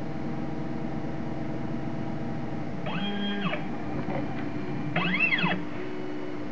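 Stepper motors of a ShapeOko CNC whining as they move the pen carriage, the pitch rising and then falling with each move: once about halfway through and again near the end, over a steady hum.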